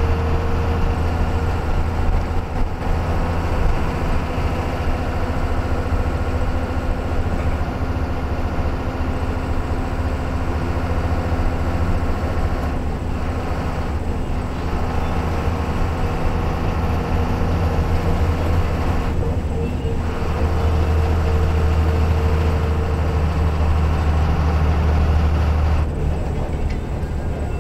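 Engine and road noise of a moving vehicle heard from inside its cabin: a steady low drone.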